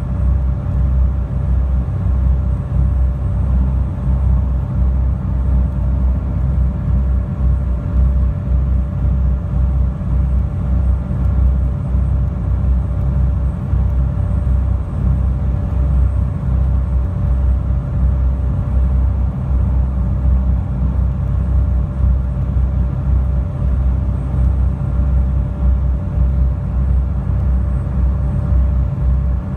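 Steady low drone of a high-speed passenger ferry's engines running at cruising speed, heard from inside the cabin, with a faint steady whine above the rumble.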